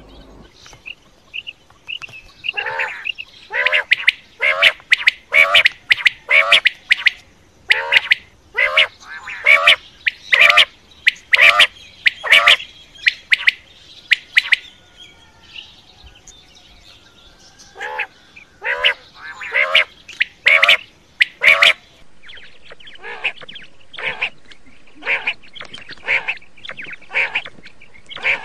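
Quail calling over and over, short harsh calls about one and a half a second, broken by a pause of a few seconds, then softer calls near the end.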